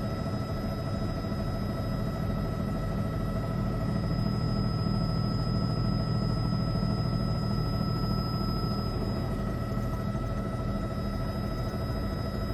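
Steady low rumble of a helicopter in flight, with a few thin constant tones above it.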